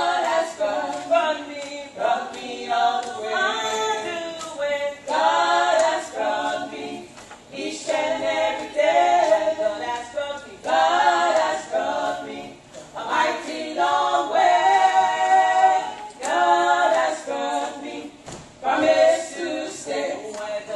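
Two women singing a gospel song together in harmony, unaccompanied, into a microphone through a PA, in long sustained phrases with short breaks between them.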